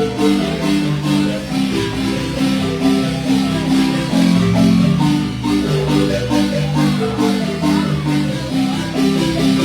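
Marimba music: a son played with a quick run of struck mallet notes over a low bass line.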